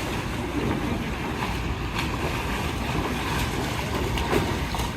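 Steady rushing noise, heaviest in the low end: wind on the microphone outdoors.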